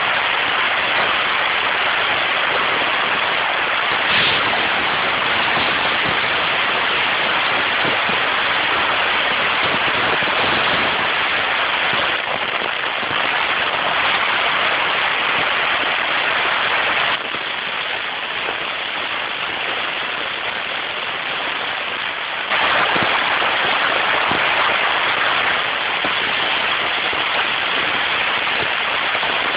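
Steady rushing wind and road noise of an open-top custom hot rod driving along at speed, with no clear engine note standing out. It drops a little for about five seconds past the middle, then comes back up.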